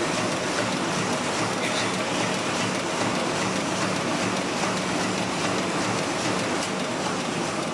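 Heidelberg MO-S offset printing press running: a steady mechanical clatter with a low hum underneath, even throughout.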